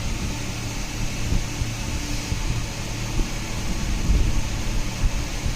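Steady whirring background noise with an even hiss, a faint low hum and irregular low rumbling.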